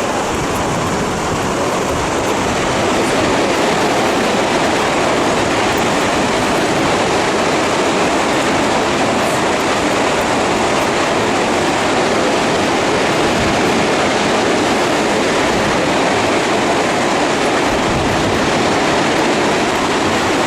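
Steady rushing of falling water from the Vøringsfossen waterfall, a loud even noise with no rhythm that grows slightly a few seconds in.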